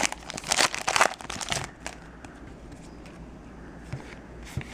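Foil wrapper of a Yu-Gi-Oh! booster pack crinkling as it is torn open, a quick run of crackles for about the first second and a half. After that it goes quieter, with a couple of faint taps near the end.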